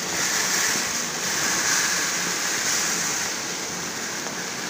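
Rice poured from a plastic sack into a plastic storage container: a steady hissing rush of grains, a little louder in the first three seconds.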